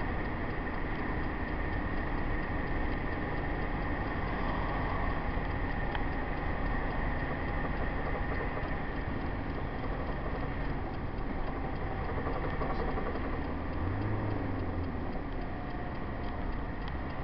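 Hymer motorhome driving at motorway speed, heard from inside: steady road and engine noise with a thin steady whine running through it. A short, deeper hum comes about two-thirds of the way in.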